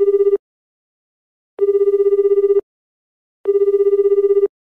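Telephone ringing: a fast-trilling electronic ring that sounds three times, each ring about a second long with about a second's pause between.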